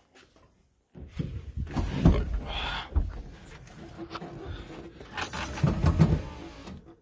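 Someone climbing into a car's driver's seat: rustling, creaks and knocks against the seat and door frame, with a short squeak about two and a half seconds in.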